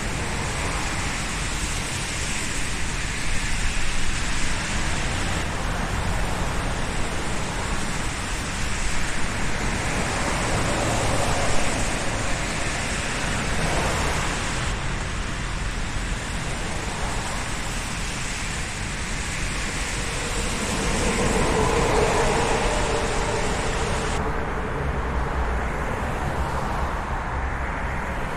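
Steady road traffic noise: a continuous rush of tyres and engines from passing vehicles, rising and falling slightly. About three-quarters of the way through, a louder engine tone swells and fades as one vehicle passes close.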